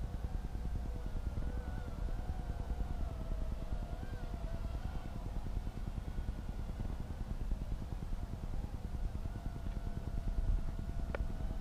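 Micro quadcopter's motors and propellers whining, the pitch wavering up and down as the throttle changes, over a low rumble. A short click near the end.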